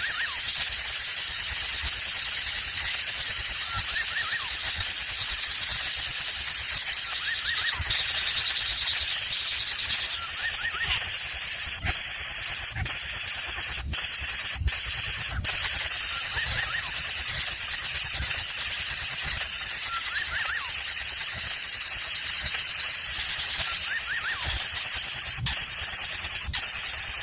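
Outdoor ambience: a steady high-pitched hiss, with faint short chirps every few seconds and a handful of sharp clicks around the middle.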